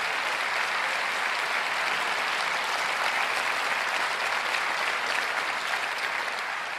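Large auditorium audience applauding, a steady dense clapping that thins slightly near the end.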